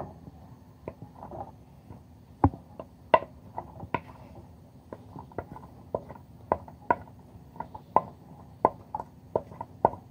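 Wooden spatula tapping and scraping against a ceramic dish as chopped onion is pushed off it into a frying pan: a run of short, sharp clicks, irregular at first and coming more often toward the end.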